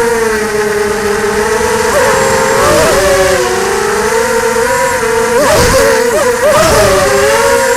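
ZMR 250 FPV racing quadcopter's brushless motors and propellers whining, the pitch wavering with throttle. About two thirds of the way through, the pitch swings up and down quickly with a rush of air noise, as throttle is snapped during acrobatic manoeuvres.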